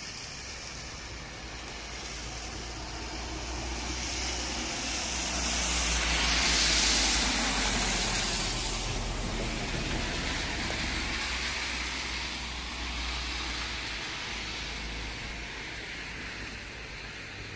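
A car passing along a slushy, snow-covered street, its tyre hiss swelling to a peak about seven seconds in and then fading away, over a steady low rumble.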